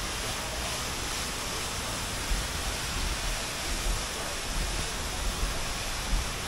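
Steady rushing noise, with uneven low rumbling bumps underneath.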